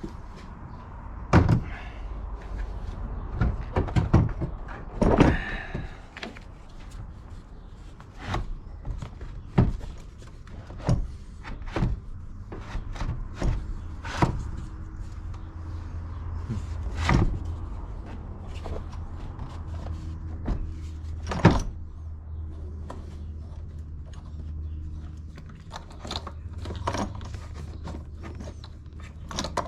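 Irregular clunks, knocks and clicks of a car battery being set into its tray and its hold-down and terminals fitted by hand, a few of them loud, over a low steady hum.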